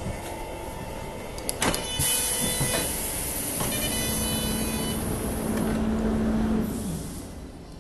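CityElefant electric multiple unit standing at its terminus: a few clicks, then a sudden hiss of compressed air about two seconds in that fades over a few seconds, and a steady hum that winds down with a falling pitch near the end.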